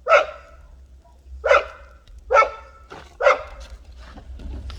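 A puppy barking: four short, sharp barks, roughly a second apart.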